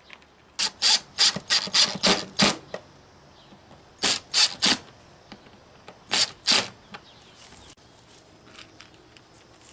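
A ratcheting hand tool working screws on a plastic cooler lid in quick rasping strokes: a run of about seven strokes, then three, then two, with pauses between.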